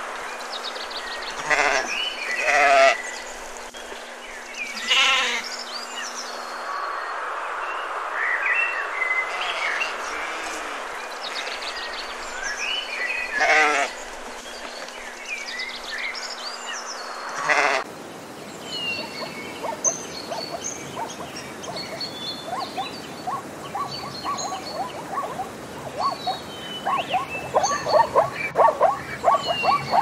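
Sheep bleating several times in quavering calls over background bird chirps. After about 18 seconds the sound changes abruptly to a rapid run of short, repeated calls that grows louder toward the end.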